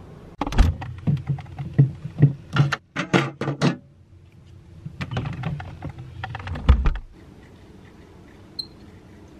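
Close-up handling sounds of small plastic objects: two bursts of quick clicks, taps and knocks, the first lasting about three seconds and the second about two, then a single faint tick near the end.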